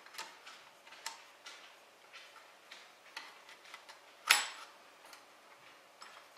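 Scattered light clicks and knocks as the Ord Bot 3D printer's spool holders are slid into its aluminium frame, with one louder knock about four seconds in.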